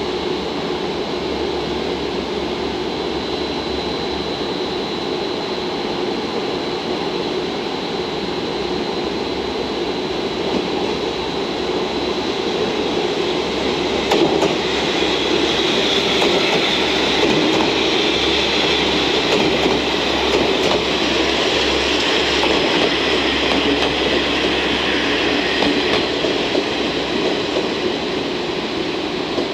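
Three-car JR KiHa 40 / KiHa 47 diesel railcar train running slowly past: its diesel engines and wheels on the rails make a steady drone. A knock comes about halfway through, and the sound grows louder while the cars go by.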